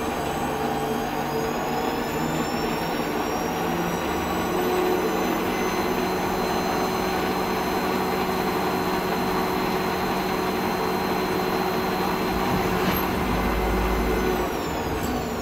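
Bernardo Profi 550 WQV mini metal lathe's 750-watt motor and spindle running unloaded on its first run, near its top speed of about 950 RPM in the low range: a steady whine with several high tones. Near the end the whine falls in pitch and quietens as the speed knob is turned down.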